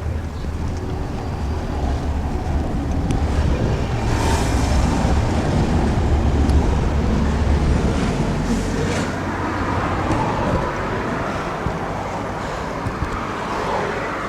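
Road traffic passing, with a heavy engine's low rumble through the first half that fades out, and the noise swelling to a peak around the middle as vehicles go by.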